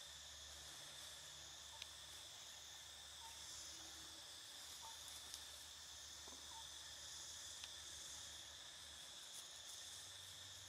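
Faint, steady insect chorus in the forest: a continuous high drone with a softly pulsing hiss above it, and a few faint ticks.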